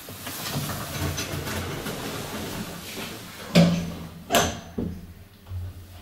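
Lift doors sliding shut after a call button is pressed, closing with a clunk about three and a half seconds in and a second, sharper clunk about a second later.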